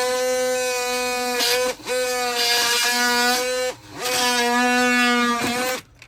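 Dremel rotary tool with a fine tip running at high speed, a steady high whine. It cuts out briefly twice and again near the end, spinning back up each time, as it works at the nails in brittle shingle siding.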